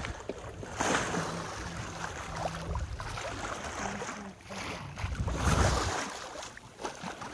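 Sea water rushing and splashing along the hull of a small sailboat under way, surging louder about a second in and again past the middle.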